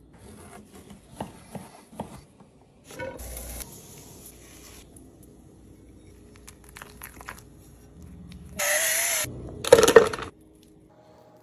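Kitchen preparation sounds: scattered light clicks and scrapes of utensils. In the last third, about a second of loud rushing noise, then a burst of knocks and plastic rustling as yolk mixture is emptied from a plastic bag into a plastic cup.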